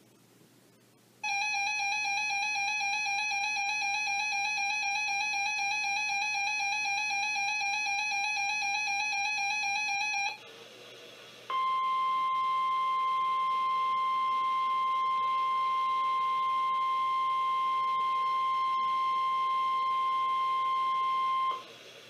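Weather radio alert sequence. First a weather radio's buzzy electronic alarm, slightly wavering, sounds for about nine seconds. After a short gap comes the steady pure 1050 Hz NOAA Weather Radio warning alarm tone for about ten seconds, which signals that a warning-level alert is about to be read.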